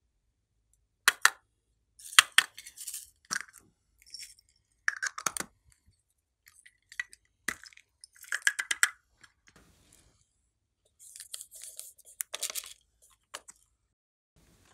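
Small plastic bottles and a plastic makeup compact being handled and opened: sharp clicks and taps of plastic caps and cases, in short clusters with pauses between.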